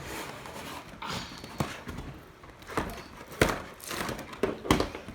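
Irregular clicks, knocks and rustles of Nerf blasters being pulled free of their plastic-and-cardboard packaging, with one sharper knock about three and a half seconds in.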